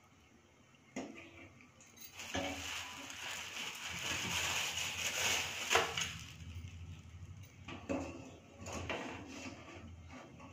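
Rustling for a few seconds while a block of jaggery is handled, then several light knocks and clinks as it goes into an aluminium kadai of water.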